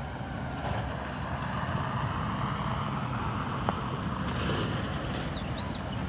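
Steady low rumble of outdoor background noise, with a few short high bird chirps near the end.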